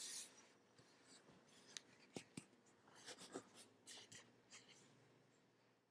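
Near silence with faint, scattered rustles and soft clicks that fade out near the end.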